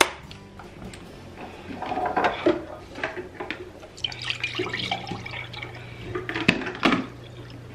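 Orange juice poured from a carton into a glass measuring cup, a steady pouring and splashing that starts about halfway through, after some handling of the carton. Two sharp knocks come near the end.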